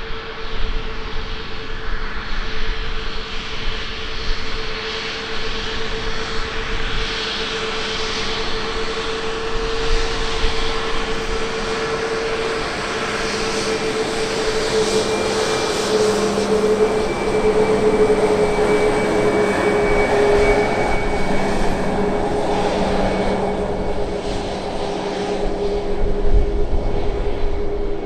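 Jet airliner engines running: a strong steady whine that sinks slowly in pitch over a broad rushing noise, which swells somewhat through the middle.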